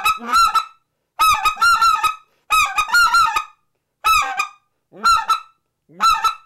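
Short-reed Canada goose call blown as a string of clucks. In each note a low bent note breaks straight up into a bright squeal with no gap between them. Single notes come between quick runs of three to five clucks.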